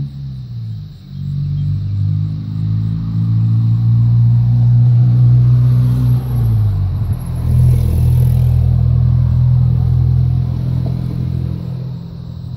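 An engine running with a loud low hum, its pitch shifting and dropping about six and a half seconds in before steadying again.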